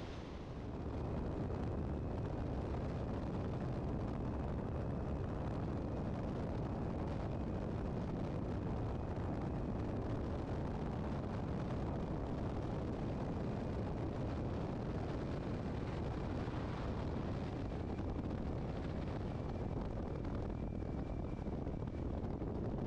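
Steady drone of an FK-9 light airplane's Rotax engine and propeller mixed with rushing air noise, running evenly without change.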